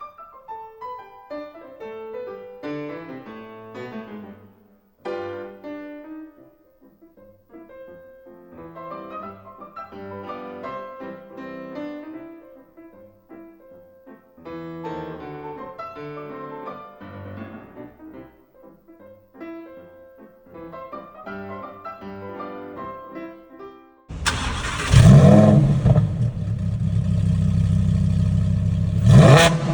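Piano music for most of the stretch; then, about 24 seconds in, a Lamborghini Huracán Evo's naturally aspirated 5.2 V10 engine cuts in loudly and is revved sharply twice.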